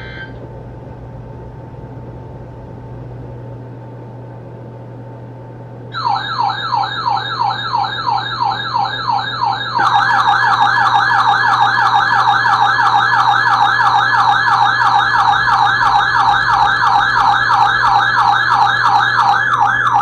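Electronic alert siren: a fast, repeating rising wail, several sweeps a second, starting about six seconds in and getting louder about four seconds later, over a steady low hum. It sounds ahead of a new severe thunderstorm warning, like a weather-alert radio's warning alarm.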